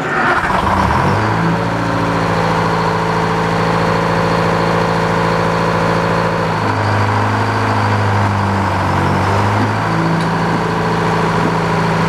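The sawmill's power engine starts and runs, its pitch climbing over the first second or so as it comes up to speed. It then runs steadily, with its pitch dropping about six and a half seconds in and rising again around nine to ten seconds, while the big circular saw blade comes up to speed.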